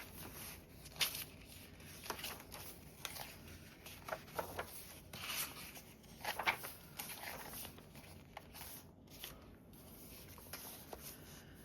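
Paper journal cards and card stock being handled and shuffled: scattered soft rustles, slides and light taps, the loudest about a second in and again about six and a half seconds in.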